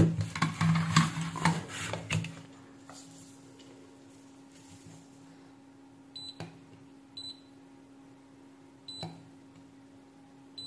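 A circuit board clattering as it is handled and set down on the workbench in the first two seconds. Then about four short high beeps, a second or two apart, from a digital multimeter as its probes touch the leads of a desoldered rectifier diode under test.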